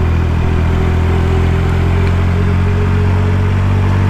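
Cruiser motorcycle engine running steadily, its pitch holding even throughout.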